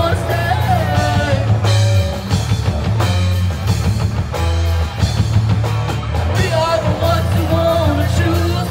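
Live rock band playing: sung vocals over electric guitars and drums.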